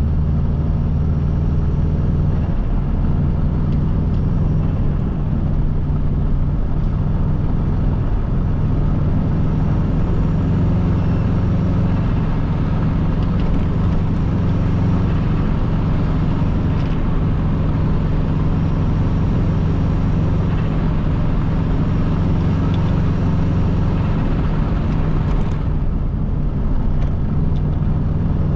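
Subaru Impreza WRX's turbocharged EJ20 flat-four engine running at a steady, even pitch with road noise, as when cruising at a constant speed.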